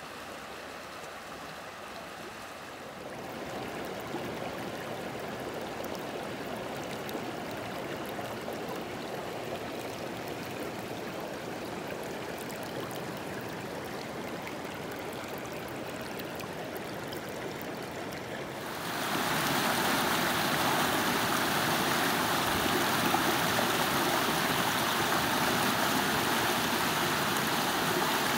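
River water rushing over boulders in rapids, a steady, even rush. It grows louder about three seconds in and again at about nineteen seconds.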